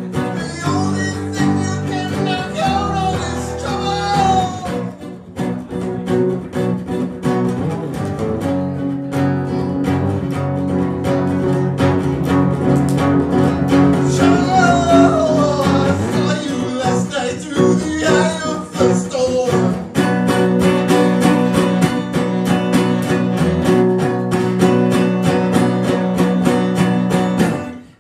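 Live acoustic duo: a nylon-string guitar and a steel-string acoustic guitar strummed together under sung, gliding vocal lines. The strumming gets denser in the last third, and the song stops right at the end.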